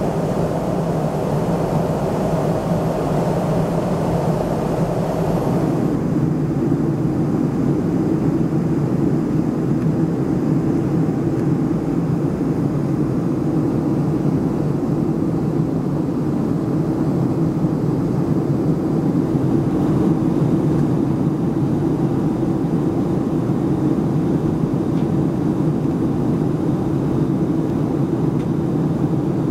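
Steady cabin noise of a Boeing 737-300 in flight, heard from a window seat beside its CFM56-3 turbofan: a constant drone of engine and airflow during descent. About six seconds in, the higher hiss falls away and the sound settles to a lower hum.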